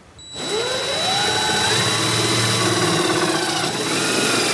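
Cordless drill running under load: its motor whine climbs in pitch over the first second or so, then holds steady, with a thin high whine over it.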